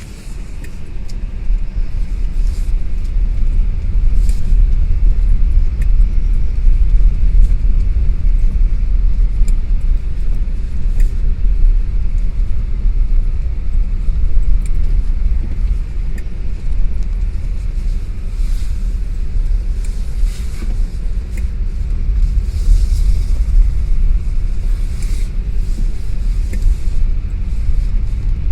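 A loud, steady low rumble with scattered faint clicks and ticks over it, building over the first few seconds.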